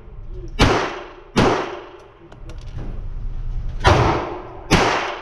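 Walther PPK/S .22 LR pistol firing four shots, each ringing off a reverberant indoor range: two shots under a second apart, a pause of about two and a half seconds, then two more under a second apart.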